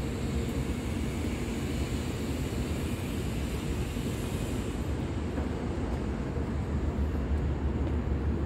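Steady low rumble of background noise with a fainter hiss on top that drops away about five seconds in.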